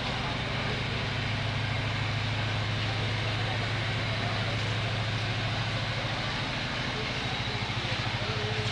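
A motor running steadily with a low hum and a fast, even pulse, growing a little louder near the end.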